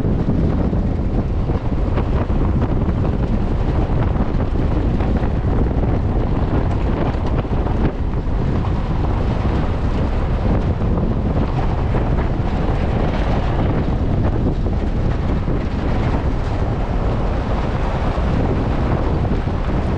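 Wind buffeting the microphone over the steady rumble of a vehicle driving on a gravel road.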